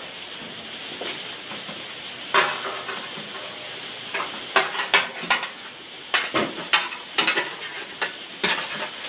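Light metallic clicks and clinks, about a dozen scattered irregularly, as the tabs of a sheet-steel IKEA Helmer drawer are handled and bent into place by hand, over a steady hiss.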